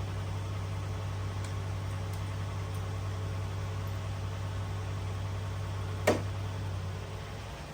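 Steady low mechanical hum over a background hiss, with a few faint ticks and one sharp click about six seconds in, as the old spark plugs are handled.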